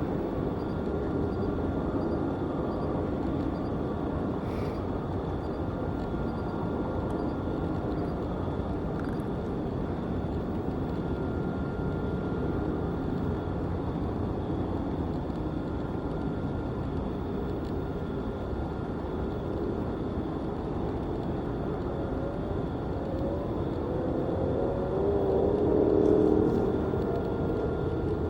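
Steady outdoor rumble of distant traffic, with a faint high hum held throughout. About 25 seconds in, a louder passing sound with a wavering pitch swells and fades within about two seconds.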